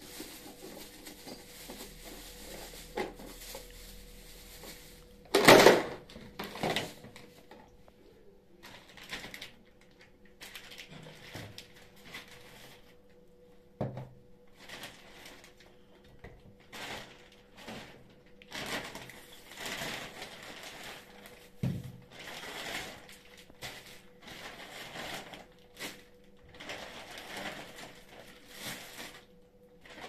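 Thin plastic grocery bags rustling and crinkling in irregular bursts as they are handled, the loudest burst about five seconds in. A few short knocks of items being set down on the counter come in between.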